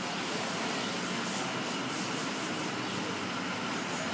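Steady city street noise: an even hiss of traffic and urban background.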